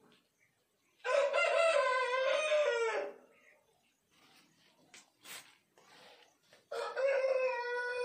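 Aseel roosters crowing: two long crows, one starting about a second in and lasting about two seconds, the other starting near the end.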